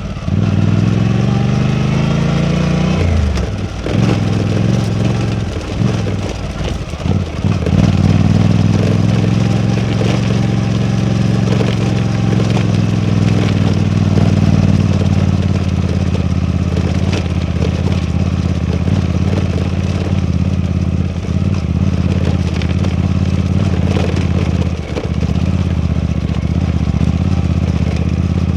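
Suzuki V-Strom 800DE's parallel-twin engine under way: it rises in pitch for the first three seconds, drops sharply as it shifts up, dips briefly twice more, then runs at a steady pitch while cruising.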